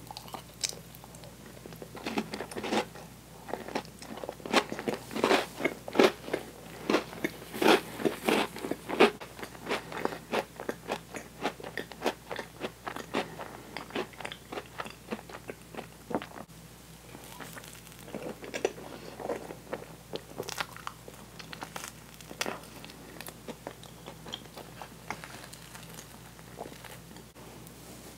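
Close-miked chewing of sticky, gooey toasted marshmallow: quick wet clicks and smacks, densest and loudest in the first half, then thinning out.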